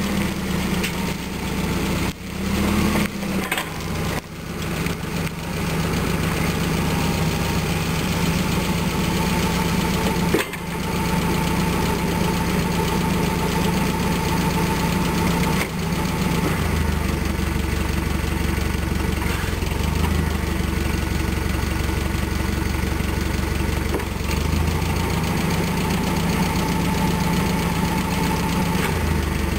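1972 Hyster H50F forklift's propane-fuelled engine running steadily, its note shifting in pitch a few times.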